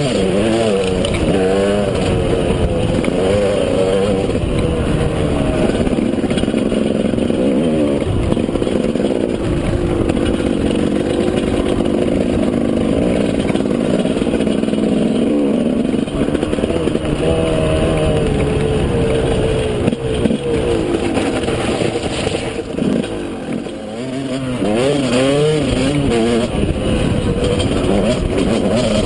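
KTM 200 EXC two-stroke single-cylinder engine running under load, its pitch rising and falling as the rider works the throttle and gears. The engine eases off briefly about three quarters of the way through, then picks up again.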